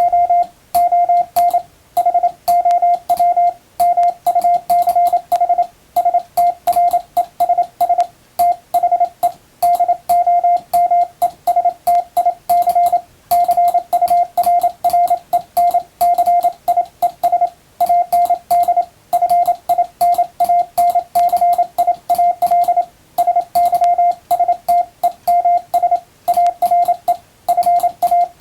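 International Morse code sent with an electronic keyer: a single steady tone keyed on and off in rapid dots and dashes, spelling out English plain text, with short pauses between words. A thin click marks the start and end of many elements.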